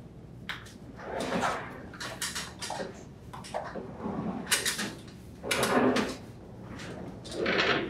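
LG French-door refrigerator being pulled out from the wall and swivelled on the floor: its rollers and feet scrape and rumble in several uneven bursts as it is moved.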